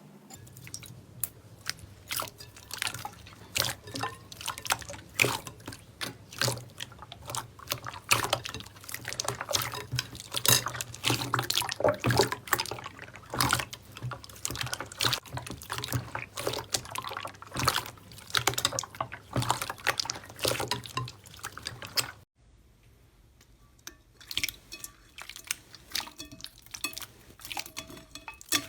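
Slime being squished and kneaded by hand: a dense run of clicks and pops. About three-quarters through it breaks off suddenly, and a quieter, sparser run of clicks follows.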